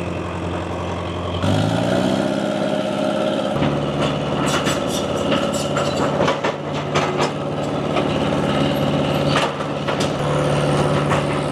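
Dresser TD7E crawler dozer's diesel engine revving up about a second and a half in, then running steadily at the higher speed, with a run of sharp knocks and clanks through the middle.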